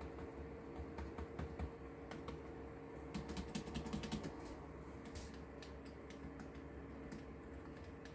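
Keys of a Soar RGX-K2 gaming keyboard being pressed and tapped: scattered clicks, with a quick run of keystrokes about three to four and a half seconds in, over a faint steady hum.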